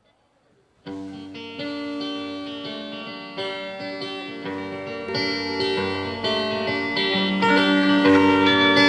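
A live band with guitars starts the song's instrumental intro about a second in, after near silence, with sustained chords that grow steadily louder.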